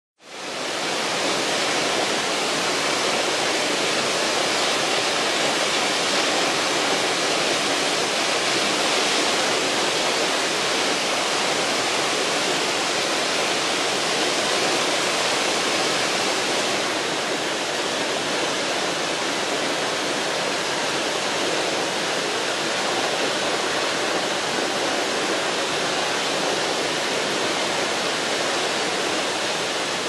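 Cascade Creek waterfall splashing down granite rock in a steady rush that fades in over the first second. The flow is low for the season, like late-summer flow in a drought year.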